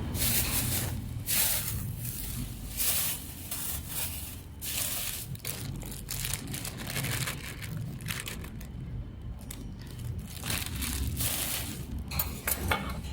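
Plastic wrapping crinkling and rustling close by, in irregular bursts.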